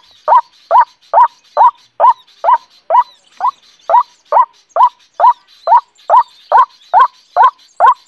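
White-breasted waterhen calls: a loud, croaking note repeated very evenly about twice a second, each one a quick upward sweep that drops off.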